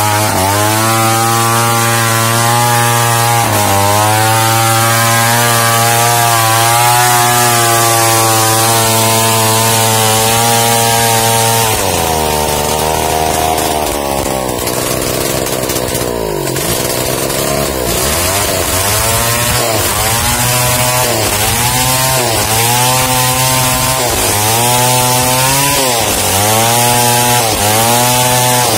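Large two-stroke chainsaw ripping lengthwise through a timber beam, running flat out under steady load. About twelve seconds in the engine note changes and sags, and for the last ten seconds the pitch dips and recovers about once a second.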